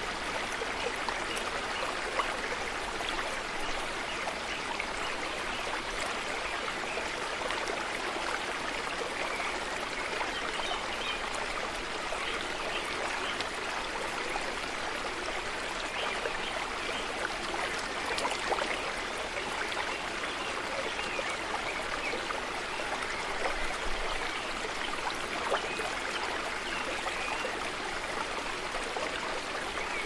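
Water in a home aquarium trickling and splashing steadily, with faint scattered ticks.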